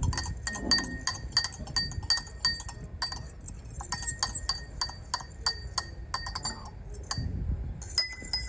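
A spoon stirring liquid in a glass, clinking rapidly against the sides with a bright ringing tone, about four clinks a second, with a brief pause near the end.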